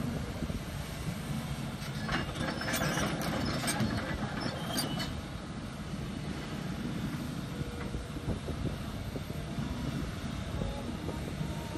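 Volvo EC210 excavator's diesel engine running steadily under load. About two to five seconds in comes a burst of scraping and clattering as the steel bucket works the dry soil slope.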